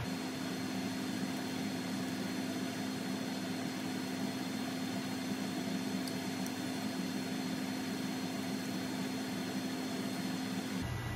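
Steady kitchen-appliance hum, with a low drone and an even hiss, while vegetables and meat cook in a frying pan on the cooktop.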